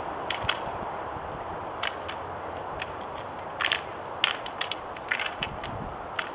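Stick swords clacking against each other in sharp, irregular hits, some in quick pairs and clusters, over a steady background hiss.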